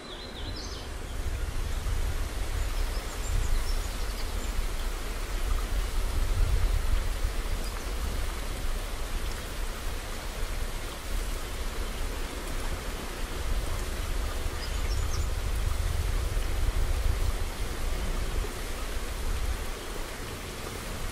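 Wind buffeting an outdoor camera microphone: a gusty low rumble that swells and eases over a steady hiss. A couple of faint high chirps come about half a second in and again about fifteen seconds in.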